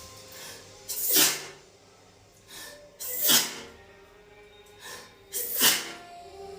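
A woman sneezing in a fit: three sneezes about two seconds apart, each a short rising 'ah' followed by a sharp 'choo'.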